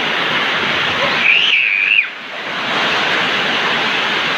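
Heavy rain hissing steadily. A little over a second in, a brief high-pitched wavering squeal sounds over it, and at about two seconds the rain sound drops away suddenly and comes back within a second.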